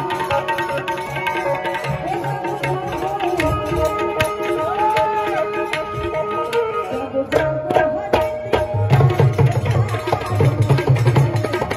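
Tabla played fast and dense over held melody notes. After a short break about seven seconds in, the drumming turns heavier with deep, booming bass strokes.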